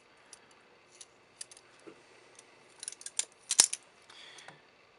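Small sharp metallic clicks and taps from a balisong with titanium handles and a steel T-latch being handled. The clicks come scattered, bunch up about three seconds in, and the loudest is a single sharp click a little later, followed by a brief soft rub.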